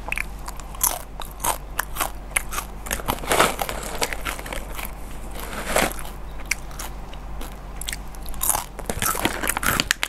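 A crunchy snack being bitten and chewed, a quick, irregular run of sharp crackling crunches.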